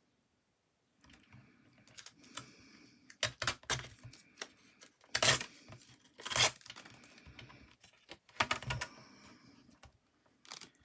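Paper and craft materials being handled at a desk: irregular taps, rustles and short crackles of paper being pressed and moved, starting about a second in.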